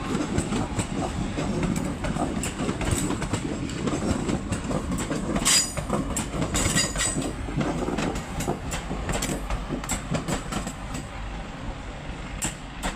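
Class 323 electric multiple unit running into the platform, its wheels clicking over rail joints and pointwork. Brief high-pitched squeals come twice, a little past halfway through.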